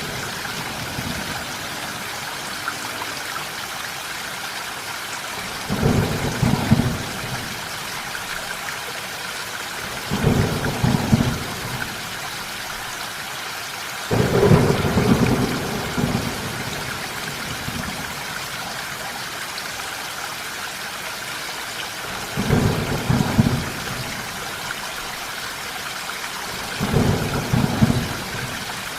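Steady heavy rain with five short rolls of thunder, rumbling low, each lasting a second or two and coming every four to eight seconds; the roll about midway is the longest.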